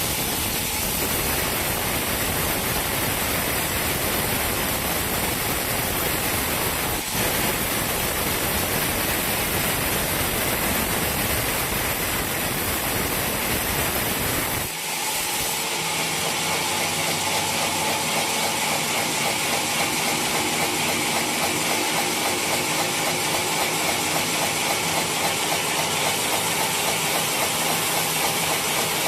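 Sawmill saw cutting through a teak log, a dense hissing rush. About halfway through it changes abruptly to a steadier machine running sound with a fast, even pulse.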